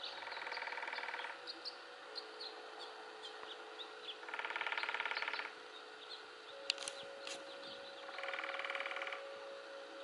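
Nuttall's woodpecker drumming on a birch trunk: three machine-gun-speed rolls, each about a second long, near the start, in the middle and near the end. Small birds chip faintly between the rolls.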